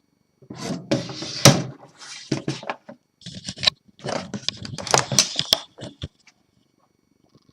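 Irregular rattling, scraping and several sharp clicks from a 1950s portable typewriter's carrying case being handled, in uneven spells that stop about six seconds in.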